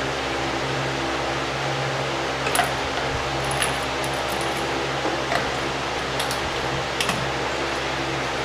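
Steady hum of a fan running, with about five short metallic clinks of hand tools on car parts spread through the middle.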